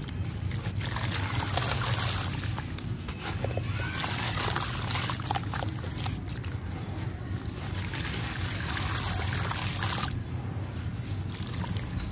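Wet sand-cement chunks crushed and crumbled between hands: gritty grains crackle and grind, with wet splashes and drips as pieces fall into shallow water. The dense gritty crackling eases off about ten seconds in.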